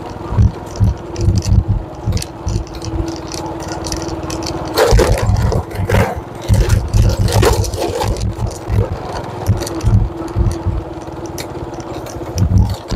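Motorcycle riding over a rough, broken road: a steady engine hum under irregular low thumps of wind on the microphone, with a stretch of rattling clatter about five to eight seconds in as it crosses cracked, potholed pavement.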